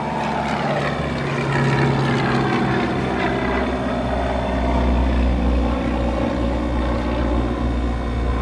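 2000 Philco heat pump running through its defrost cycle: a steady, loud deep hum with a tone that slides down in pitch over the first couple of seconds. The deep hum drops away abruptly at the end.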